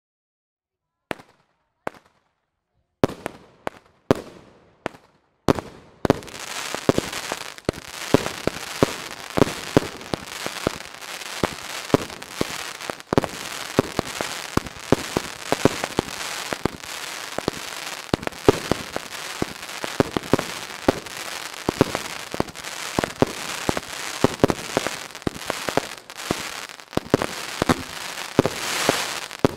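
Fireworks: after a second of silence come a few separate sharp bangs, then from about six seconds in a dense barrage of bangs over continuous crackling.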